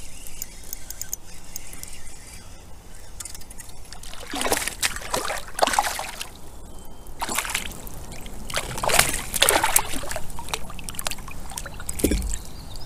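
A hooked smallmouth bass splashing and thrashing at the water's surface beside a kayak, in several bursts between about four and ten seconds in.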